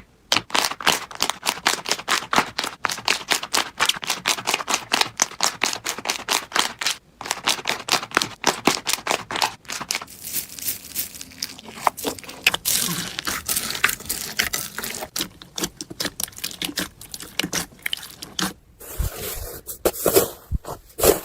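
Slime being pressed and squeezed by hand, giving a rapid run of crisp clicks and crackles, about five a second at first. The texture turns hazier and more scraping partway through.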